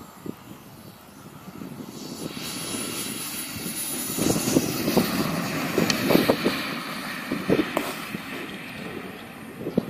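JetCat P-180 turbine of a BVM Ultra Bandit RC jet at low power as the model lands and rolls out on grass. Its jet hiss swells as it passes close about four to six seconds in, then fades as it rolls away, over low crackling thumps.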